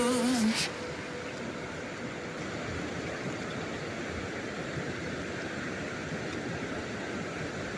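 Steady rushing of a fast-flowing river, an even noise with no rhythm.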